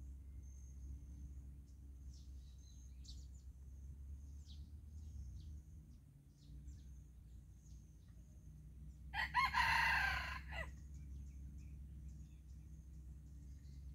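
A red junglefowl rooster crows once, about nine seconds in, a short crow of about a second and a half. Faint high-pitched chirps sound throughout.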